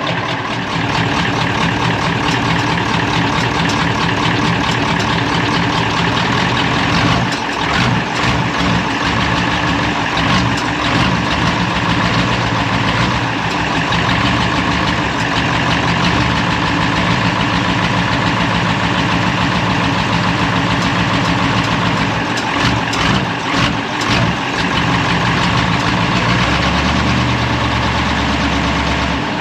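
Truck diesel engine running at a steady idle, with a fast, even low pulse and a clattery tone.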